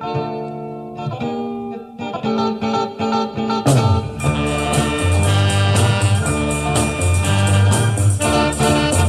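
Instrumental introduction of a Thai luk thung song, led by guitar over held chords; the full band comes in with bass and a steady beat about four seconds in.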